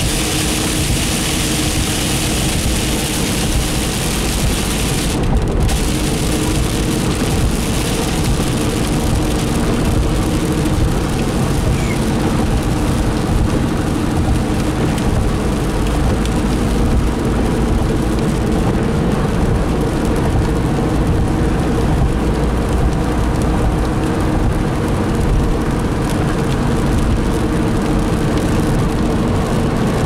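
Steady road and tyre noise heard from inside a car driving on a wet road in rain, with a low engine drone under it. A strong high hiss drops away about five seconds in.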